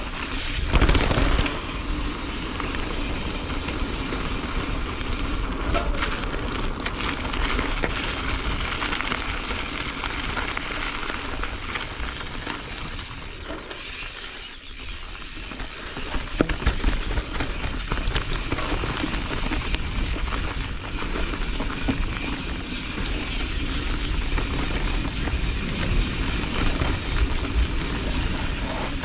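Canyon Strive enduro mountain bike descending a dirt trail: the tyres roll and crunch over dirt and rock, and the bike rattles, giving a steady rumbling noise with scattered small clicks. It eases off for a couple of seconds about halfway through, then picks up again.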